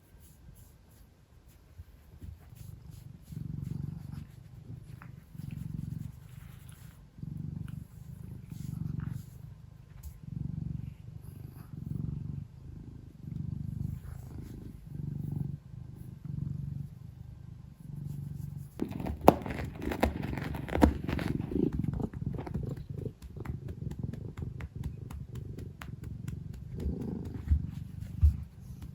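A domestic cat purring close to the microphone, a low purr that swells and fades with each breath, about once a second. About two-thirds of the way in, louder rustling and rubbing noises join the purr.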